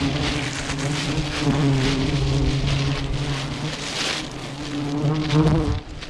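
Plastic bag rustling and crinkling in gloved hands as honeycomb is packed into it, over a steady low droning hum.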